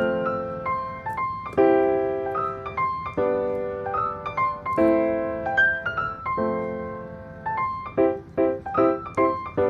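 Background piano music: sustained chords struck about every second and a half and left to fade, turning to short, quickly repeated chords near the end.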